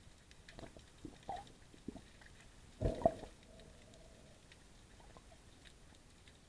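Muffled underwater handling sounds as a speared fish is hauled in along the spear shaft: a few short knocks and rubs, the loudest about three seconds in, over faint scattered clicking.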